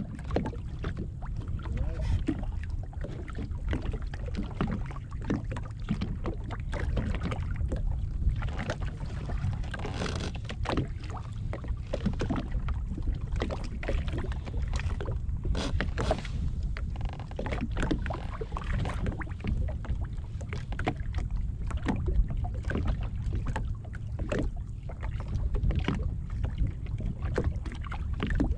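Water lapping and slapping irregularly against the hull of a drifting jetski, over a steady low rumble.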